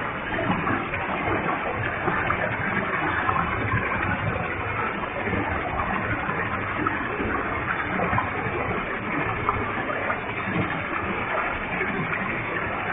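Waterfall with a heavy flow, water falling and splashing in a steady, unbroken rush.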